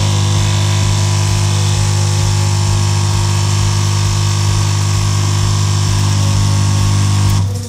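Lavazza A Modo Mio espresso machine's vibration pump running with a loud, steady hum as it pushes water out of the brew head before the capsule-piercing piston is in position. It cuts off sharply near the end. The owner takes this fault for an air leak in the piston's pressure circuit.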